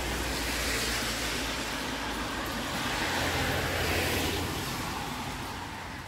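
A passing road vehicle: a rushing noise that swells to a peak about four seconds in and then fades away.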